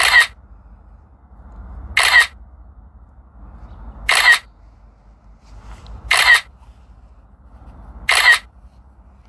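Camera-shutter sound from the drone controller app, once for each photo the drone takes in a 275-shot hyperlapse: five short, sharp shutter clicks evenly spaced about two seconds apart.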